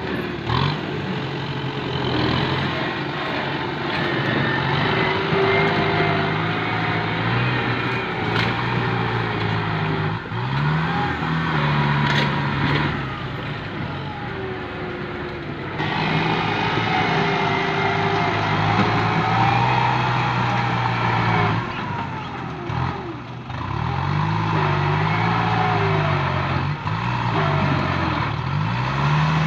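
Diesel farm tractor engine working hard as the tractor pushes into a mound of earth and brush with its front blade, its pitch rising and falling repeatedly as the load and throttle change. A few short knocks sound through it.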